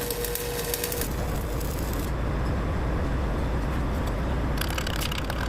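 Stick (arc) welding on a differential housing: the arc crackles and sizzles, fades about a second in, and strikes up again near the end, over a steady low rumble.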